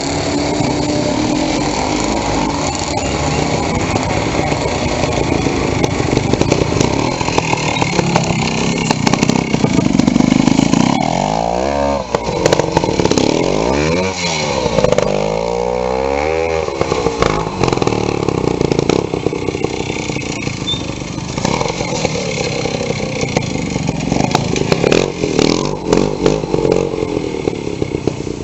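Vintage trials motorcycle engine running at low revs, revved up and down several times in the middle.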